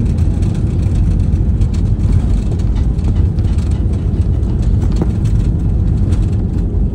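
Cabin noise of an Airbus A320-family airliner rolling out on the runway just after touchdown: a loud, steady low rumble of the wheels and engines as it slows.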